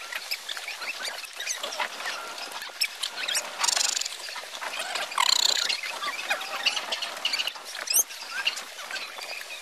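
Small waves lapping and splashing against a wooden jetty's pilings: an irregular patter of little splashes and clicks, briefly louder about three and a half and five seconds in, with a short rising squeak near the end.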